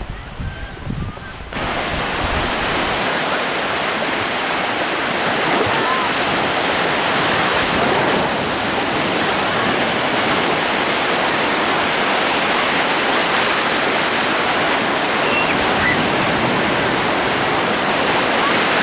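Wind buffeting the microphone for a moment, then from about a second and a half in the steady rush of Black Sea surf breaking and washing over the shallows, the waves running big.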